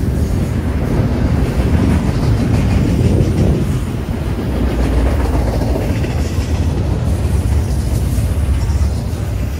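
Double-stack intermodal well cars of a Norfolk Southern freight train rolling past, a loud, steady low rumble of steel wheels on rail.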